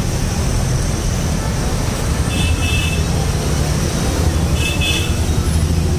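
Steady street-traffic rumble. Twice, around the middle and near the end, a brief high-pitched tone sounds over it.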